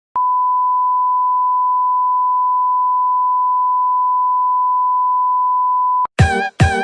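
A single steady electronic beep tone, one pure pitch held unchanging for about six seconds and then cutting off abruptly. Music with short plucked notes starts right after it.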